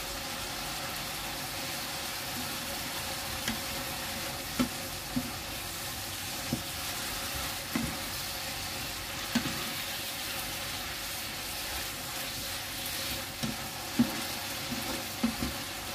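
Mung bean sprouts and glass noodles sizzling in a frying pan as a wooden spatula stirs and turns them, with scattered sharp knocks of the spatula against the pan. The dish is being cooked down to dry off its chicken broth.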